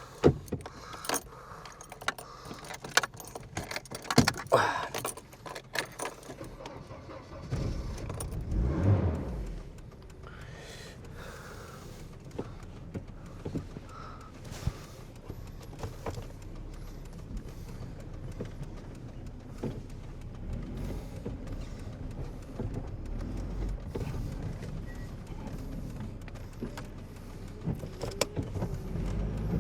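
Keys jangling and a series of clicks and knocks, then about eight seconds in a Volvo car engine cranks and fires into life after sitting unused for a while, settling to a steady idle.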